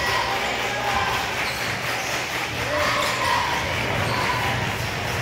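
Basketball dribbled on a hardwood gym floor, over the steady murmur of spectators' voices in the gym.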